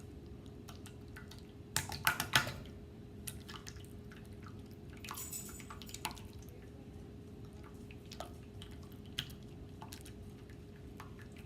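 Jiggly water slime being squeezed and poked by hand, giving short wet clicks and squelches, with a loud cluster of them about two seconds in and scattered smaller ones after.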